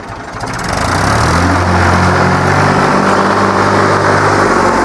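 Farm tractor's diesel engine running as the tractor drives up close, growing louder over the first second and then holding a steady, loud note.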